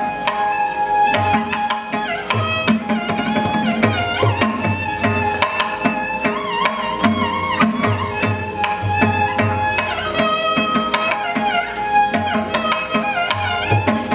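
Carnatic classical music: a vocalist singing with violin accompaniment, the melody sliding and bending between notes, over steady mridangam drum strokes.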